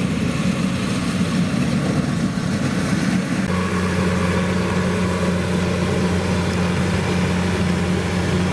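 Kubota DC-105X rice combine harvester's diesel engine and threshing gear running under load as it harvests rice. A rough, wavering drone changes about three and a half seconds in to a steadier, even hum.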